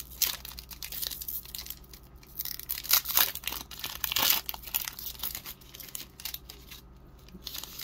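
Foil trading-card booster pack wrapper being torn open and crinkled by hand: a run of irregular crackling tears, loudest in the middle and thinning out near the end.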